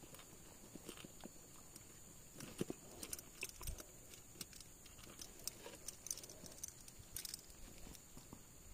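Faint, irregular clicks and light knocks.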